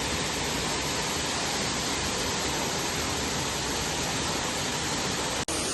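Steady rush of flowing water, an even hiss with no rhythm, broken by a sudden cut near the end.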